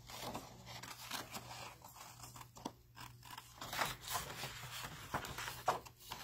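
Fine-pointed craft scissors snipping through patterned paper, a series of short, irregularly spaced cuts as a curved shape is cut out.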